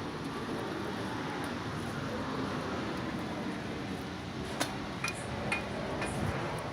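Steady low rumble of a vehicle running, with a few short light metallic clinks in the second half.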